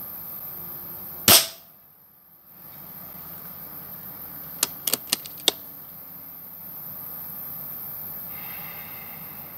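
A single sharp shot from a Hatsan AT44-10 PCP air rifle about a second in. A few seconds later comes a quick run of four or five metallic clicks, the side lever being cycled to cock the rifle and index the next slug from the magazine.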